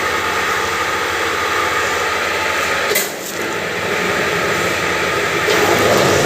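Hammer-mill pulverizer running steadily with a dense, even machine noise. A single sharp click comes about three seconds in, and the level dips briefly after it.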